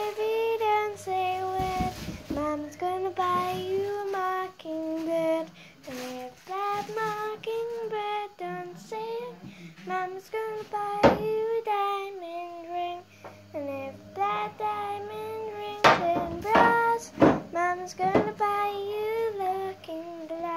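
A child singing a tune close to the microphone in long held notes, broken by a few sharp knocks, the loudest about eleven and sixteen seconds in.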